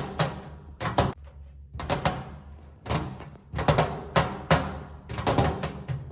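Fingers and nails tapping on a metal tray in quick groups of two to four taps, about once a second. Each tap has a short ring that fades.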